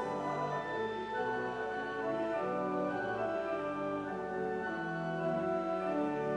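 Church organ playing a hymn in held, steady chords.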